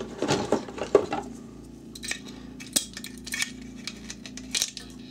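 Shotgun shells clicking and rattling as they are pushed by hand, one at a time, into a polymer 4x4 belt shell carrier with coiled-spring retainers: a series of sharp clicks mixed with handling sounds.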